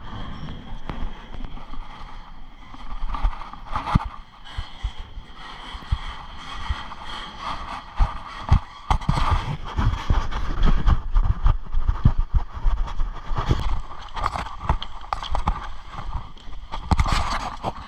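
Footsteps crunching on railway track ballast, an irregular run of knocks and crunches that grows heavier about halfway through, with knocks from climbing down off a container well car's steel platform.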